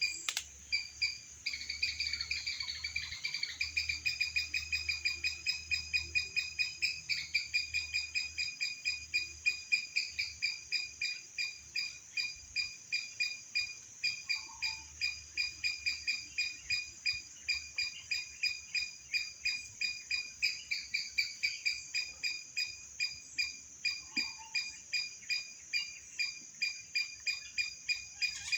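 A high-pitched chirping call repeated steadily at about three chirps a second, like a cricket or similar small calling animal, over faint low background noise.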